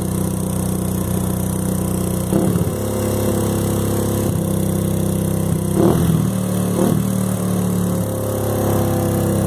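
Suzuki Yes 125 motorcycle's single-cylinder four-stroke engine running steadily, with three brief rises in level. The engine is making a noise that the owner takes for an engine problem.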